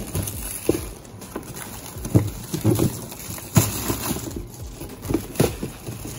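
A plastic tub being handled and unwrapped: irregular knocks and thumps of the plastic box against the counter, with rustling of its clear plastic wrapping as it is pulled off.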